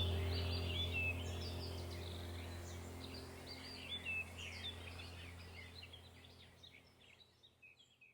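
Small garden birds chirping and singing in quick, high twittering phrases over a low steady hum, the whole sound fading out gradually to silence.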